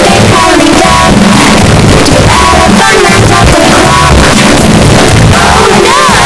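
Loud, heavily effected music in a rock style with guitar, its melody warbling up and down in pitch near the end.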